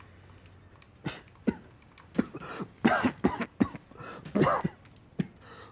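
A man coughing into his fist: a fit of short, repeated coughs that starts about a second in and goes on for about four seconds.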